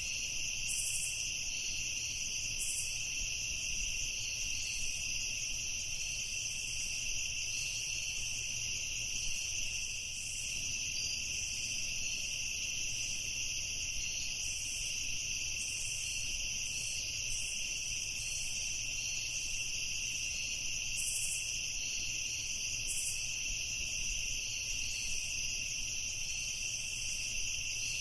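Night insects, crickets, chirring steadily in a dense continuous chorus at several pitches, with a faster pulsing layer of higher chirps over it.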